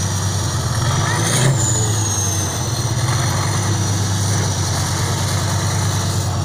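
Truck diesel engine idling steadily, with a brief rev about a second and a half in. A high whine jumps up with the rev and then slowly falls back.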